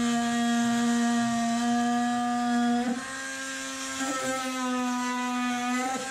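Cordless drill running under load as it drills into a bus's metal roof frame: a steady whine whose pitch dips briefly about three seconds in, again a second later, and near the end.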